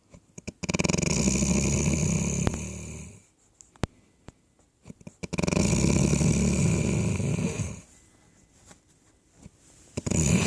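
Loud snoring: two long snores of about two and a half seconds each, a couple of seconds apart, with a third beginning near the end.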